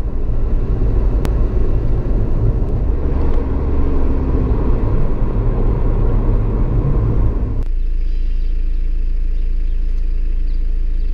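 Car road noise heard inside a moving car's cabin: a steady low rumble of engine and tyres. About two-thirds of the way through it cuts abruptly to a steadier, thinner low hum.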